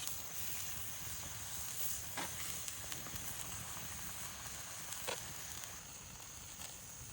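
Open campfire crackling: a steady hiss with a few sharp pops, one about two seconds in and another about five seconds in.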